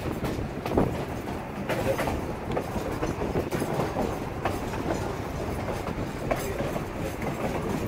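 Narrow-gauge passenger train rolling on the rails, a steady rumble with a sharp click from the wheels now and then.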